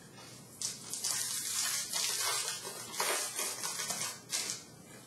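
Silver foil wrapper of a 2016-17 SP Authentic hockey card pack crinkling and tearing as it is opened. It comes as a crackly hiss in uneven surges, starting about half a second in and stopping shortly before the end.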